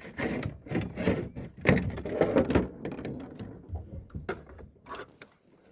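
Knocks, scrapes and rustling of handling in a kayak as a landed smallmouth bass is laid out to be measured. The clatter is dense for about three seconds, then a few single knocks.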